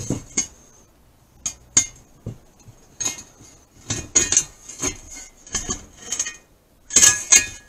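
Welded sheet-steel welding-helmet shell, cut from a gas bottle, being handled and turned over on a wooden deck: a string of irregular metallic clinks and knocks.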